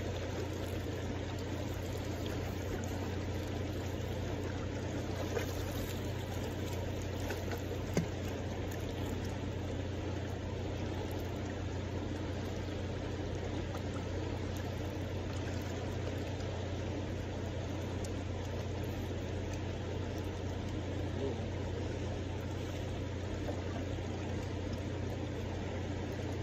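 Steady rush of a fast-flowing river over riffles, an even wash of water noise with a low rumble beneath, with a couple of small clicks about five and eight seconds in.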